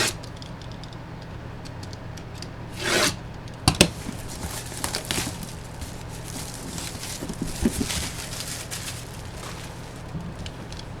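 Cardboard packaging being handled and opened by hand: a short swish or rip about three seconds in, two sharp knocks just before four seconds, then a run of small rubbing and scraping sounds of cardboard. A steady low hum sits underneath.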